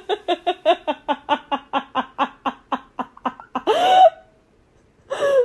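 A person laughing in a fast run of short, even 'ha' bursts, about six a second, for about three and a half seconds. It ends in one longer, louder cry that falls in pitch.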